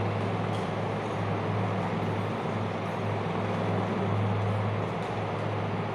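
Steady low hum over an even hiss of background noise, with no speech.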